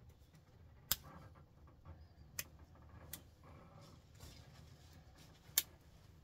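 Hands working small metal pins out of plastic computer-cable connectors: four sharp clicks, the loudest about a second in and near the end, with soft handling rustle between.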